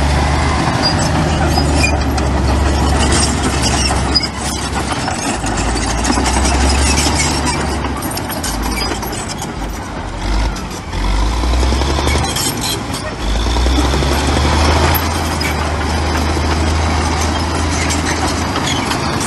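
Heavy diesel earthmoving machinery running. The low engine rumble drops away and comes back several times as the load changes, with a few brief metallic knocks.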